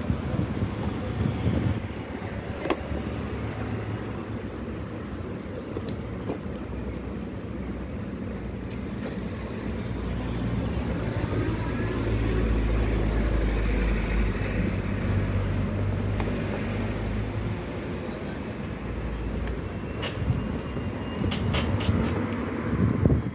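Low rumble of motor-vehicle traffic running nearby. It swells for several seconds partway through, as if a vehicle passes close, and a few sharp clicks come near the end.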